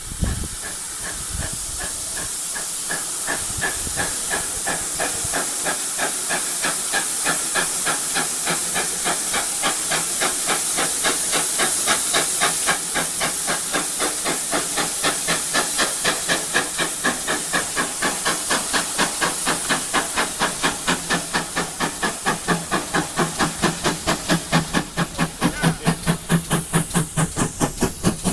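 Ex-GWR '5700' Class 0-6-0 pannier tank No. 7714 steaming toward and drawing alongside, its exhaust beats in an even rhythm getting louder as it nears. A steady hiss of steam lies under it, fading about halfway through.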